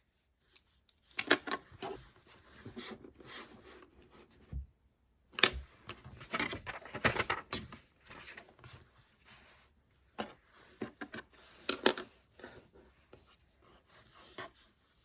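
Irregular small clicks, taps and paper-like rustles of things being handled on a study desk, in clusters with short quiet gaps between them.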